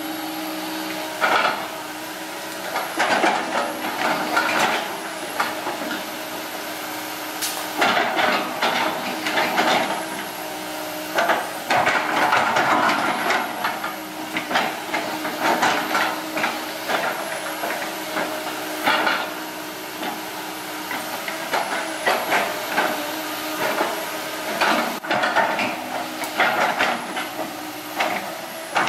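Komatsu PC160LC hydraulic excavator working: the diesel engine and hydraulics run with a steady hum and whine, while the bucket scrapes and pushes soil, giving irregular crunching and knocking throughout.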